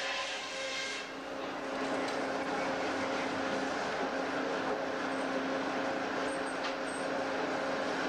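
Big Jack sawmill running: a steady machine hum under the noisy hiss of the saw, the hiss easing slightly about a second in.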